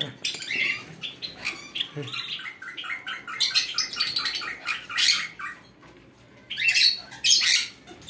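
Fischer's and peach-faced lovebird chicks begging with rapid, squeaky squawks while being hand-fed from a syringe. The calls ease off briefly about six seconds in, then pick up again.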